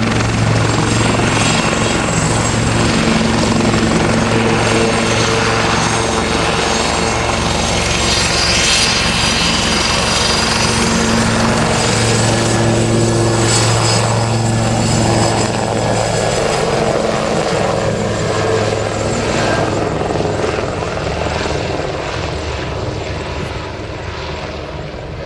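Westland Lynx AH7 helicopter flying low: the steady beat of its main rotor with the whine of its twin Rolls-Royce Gem turboshaft engines, growing quieter over the last few seconds.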